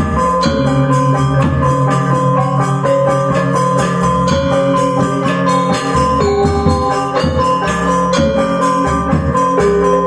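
Balinese gamelan gong ensemble playing a tabuh pisan piece: bronze metallophones struck in quick, dense strokes, ringing over sustained low tones.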